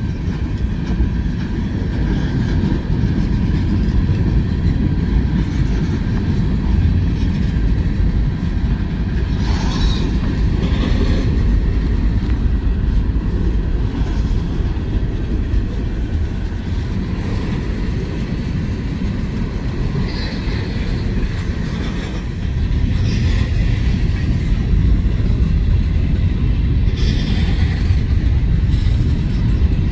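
CSX freight train cars rolling past: a steady low rumble of wheels on the rails with clickety-clack over the rail joints. A few brief, higher metallic sounds come through, and the rumble grows a little louder near the end.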